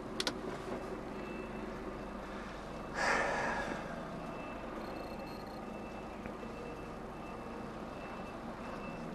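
Articulated lorry reversing into a parking space: the reversing alarm beeps about once a second over the steady low running of the engine. About three seconds in, a short loud hiss of air is released.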